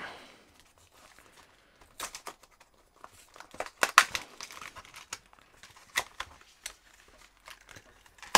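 Plastic lure packaging being bent, crinkled and torn open by hand: irregular crackles and sharp snaps, the loudest about four seconds in.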